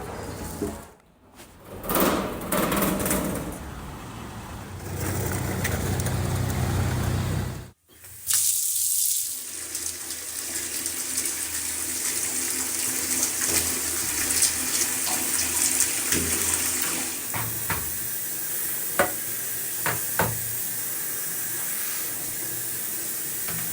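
Steady rush of running water, starting after an abrupt cut about eight seconds in, with a few light clicks near the end.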